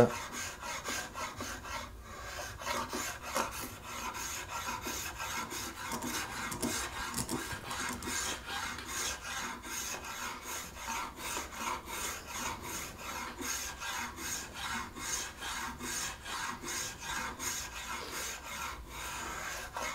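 Spokeshave slicing shavings off a Spanish cedar (cedrela) guitar neck, in quick repeated strokes about two a second.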